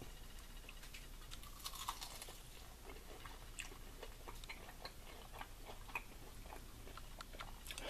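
Faint, irregular chewing of a battered, sauced plant-based wing: small wet clicks and soft crunches of mouth sounds.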